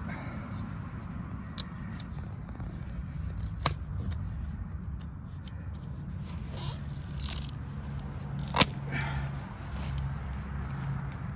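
Hand tools working in soil and roots around a buried sprinkler pipe: scraping with a few sharp clicks, the loudest about eight and a half seconds in, over a steady low hum.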